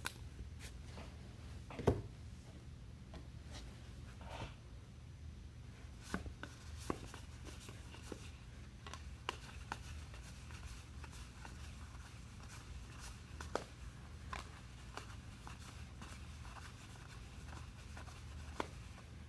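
Trading cards and packs being handled on a table: scattered soft clicks, taps and rustles, with a louder knock about two seconds in, over a steady low hum.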